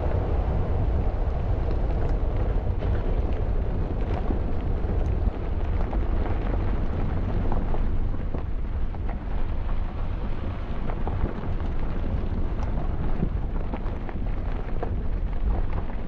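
Steady low rumble of wind buffeting the microphone of a camera travelling along an unpaved gravel road, with a scatter of small clicks and ticks from the rough surface.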